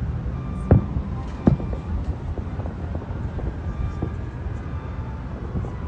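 Distant fireworks shells bursting: two loud bangs, the first under a second in and the second half a second or so later, followed by a few fainter pops, over a steady low rumble.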